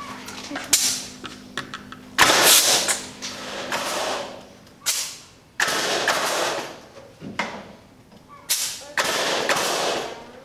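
A pneumatic framing nailer drives nails into wooden wall framing with about six sharp shots. The louder shots are each followed by about a second of rushing noise.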